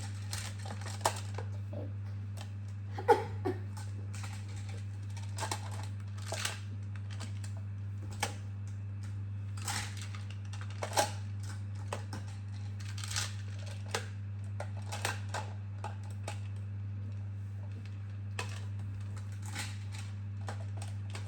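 Plastic magnetic building tiles clicking and clacking together as they are picked up, set down and snapped into place: irregular sharp clicks about once a second, over a steady low hum.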